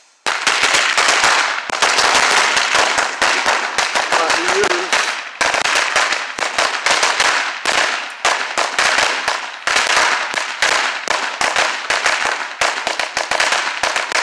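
A string of firecrackers going off in a rapid, unbroken chain of sharp bangs, starting suddenly just after the start and continuing with only brief lulls; very loud.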